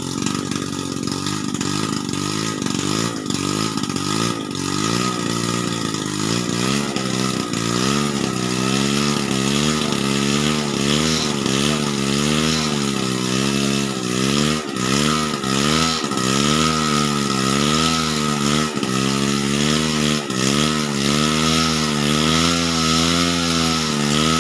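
An engine running under varying load, its pitch rising and falling regularly about once a second, with a steady high whine alongside.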